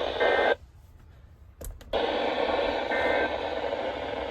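Weather radio receiver playing static hiss through its speaker between broadcasts. The hiss cuts out about half a second in, a few sharp clicks follow a second or so later, and the hiss then comes back.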